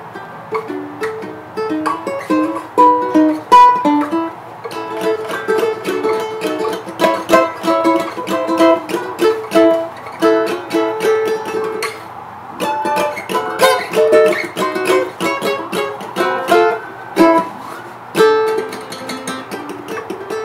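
Ukulele played solo: chords strummed steadily, with a higher line of melody notes picked out over them.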